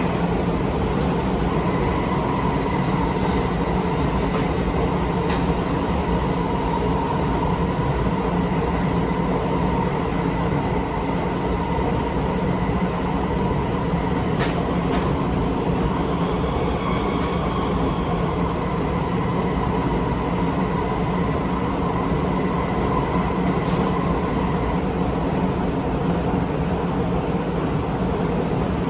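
Seibu 20000 series electric train with Hitachi IGBT-VVVF traction running steadily between stations: a continuous rumble of wheels on rail, with a faint steady high whine and a few light clicks.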